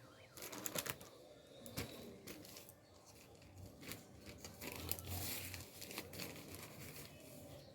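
Rustling of a flour packet and light knocks of a cup as cups of wheat flour are scooped out and added to cake batter.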